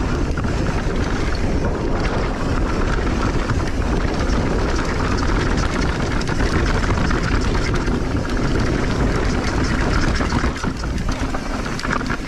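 Wind buffeting the camera microphone and knobby mountain-bike tyres rolling fast over dry, loose dirt, with many small rattles from the bike over bumps.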